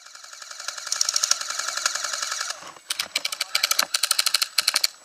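Airsoft electric rifle firing full-auto: one long rattling burst of about two seconds, then several short bursts in quick succession.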